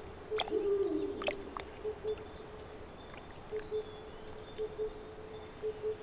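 Dusk forest ambience: insects chirping in a steady high pulse about five times a second, with a low double note repeating every second or so and a few faint clicks.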